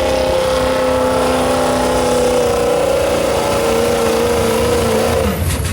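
Pulling truck's engine held at high revs, its pitch steady and then wavering and sagging slightly. About five seconds in the engine note falls away sharply as the throttle comes off.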